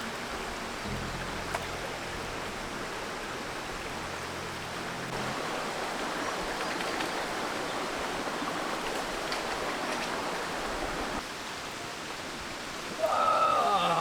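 Steady rushing of running water. About a second before the end, a short, loud pitched sound slides down in pitch.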